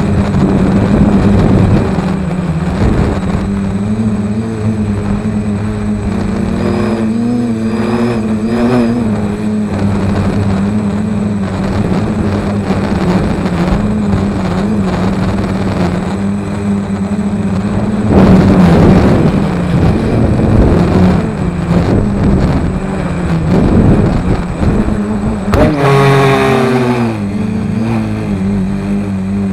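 Spider 550 hexacopter's six brushless motors (2226 1400 Kv) spinning 7x4.5 propellers in flight: a steady multi-tone buzz whose pitch wavers as the throttle changes. Near the end the pitch drops sharply and climbs back. On a 3S battery, a setup the owner finds underpowered.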